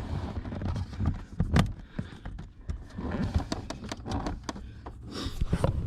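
Scattered clicks, knocks and light rattles of car interior trim and its fasteners being pushed back into place, the sharpest knock about a second and a half in.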